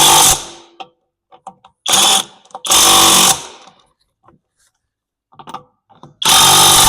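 Power impact wrench tightening a wheel nut in short loud bursts: the end of one at the start, two about two and three seconds in, and another starting near the end.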